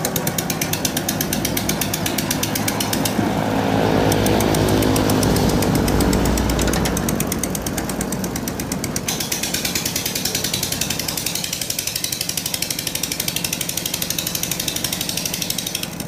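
Long-tail boat motor, a small unmuffled engine on a long propeller shaft, running with a rapid, even pulse as it pushes a loaded steel ferry. It grows louder and deeper for a few seconds from about three seconds in, then eases back.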